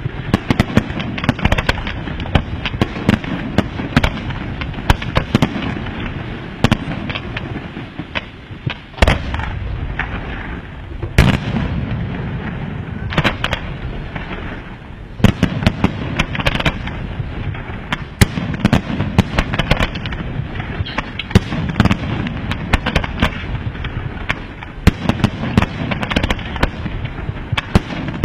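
Fireworks display of aerial shells bursting in rapid succession: a dense, continuous barrage of sharp bangs and crackle, with two heavier booms about nine and eleven seconds in and short lulls just before them and again around the middle.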